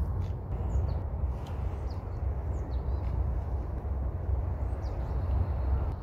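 Outdoor ambience dominated by a constant low rumble of wind on the microphone, with a handful of short, faint, high bird chirps scattered through it.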